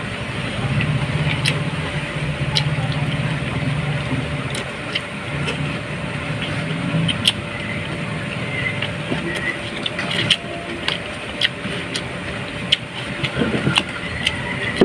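Close-up eating sounds: chewing and lip smacks heard as many short, sharp clicks. Under them runs a low steady hum that fades out about halfway through.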